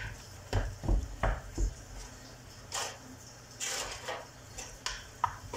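Disposable aluminium foil pans being handled on a countertop: a few knocks and thuds, then light crinkly rustles and sharp clicks.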